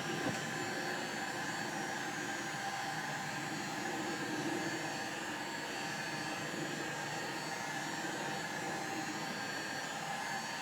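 Electric heat gun running steadily, its fan blowing a constant rush of hot air onto a blow-molded plastic chainsaw case to soften it.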